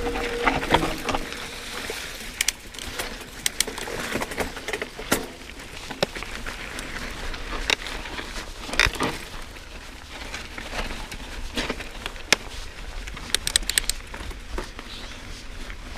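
Mountain bike riding over a dry dirt trail: steady tyre noise on the dirt, with frequent sharp clicks and rattles from the bike as it goes over bumps.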